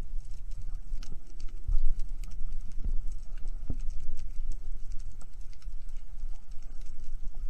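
Underwater ambience recorded through a camera housing: a steady low rumble of moving water with scattered sharp clicks and crackles and a few soft knocks.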